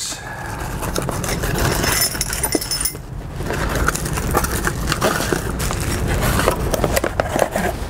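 Die grinder kit being unpacked: a cardboard box flap opened and plastic-bagged parts pulled out and handled, with crinkling, rustling and small clicks.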